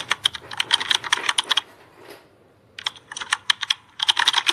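Computer keyboard typing: rapid key clicks in three quick bursts, with short pauses between them.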